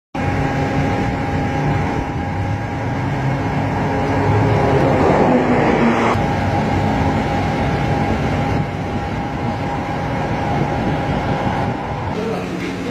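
Heavy six-wheeled military trucks' diesel engines running, a steady rumble with a faint constant tone on top.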